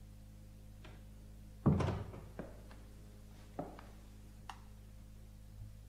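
A heavy thunk about two seconds in, then a few lighter knocks and clicks, over a steady low hum.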